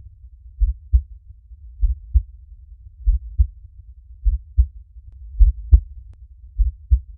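Heartbeat: deep double thumps (lub-dub), a pair about every 1.2 seconds, slow and steady at roughly fifty beats a minute. One beat about three-quarters of the way through carries a sharper click.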